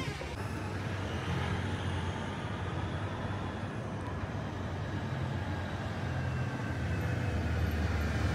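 Street traffic: a steady engine rumble and tyre noise, growing a little louder near the end as a van comes along the street.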